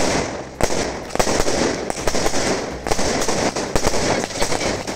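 Fireworks going off in quick succession, launched from the ground close by: a dense run of sharp bangs and crackles.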